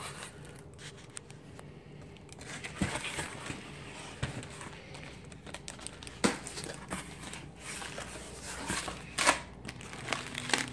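A cardboard shipping box being opened by hand: packing tape peeling and flaps being pulled back, with the cardboard rustling and the plastic air-pillow packing inside crinkling. It is an irregular run of rustles and crackles, with a couple of sharper rips about six and nine seconds in.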